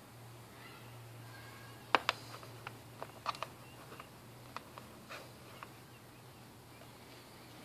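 A scatter of light clicks and taps, the loudest about two seconds in, as the small metal rear-view mirror mounting button is handled and wiped with a cleaning pad on a laptop's plastic palm rest, over a steady low hum.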